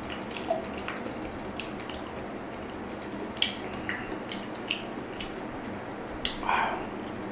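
Close-up wet chewing of juicy, very ripe dragon fruit: scattered soft clicks and squelches from the mouth.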